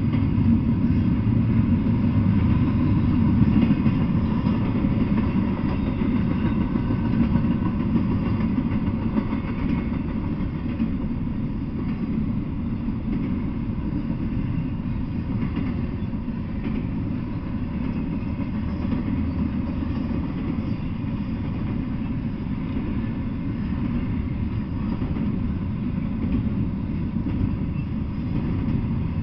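Double-stack intermodal freight train's well cars rolling past: a steady low rumble that holds even throughout.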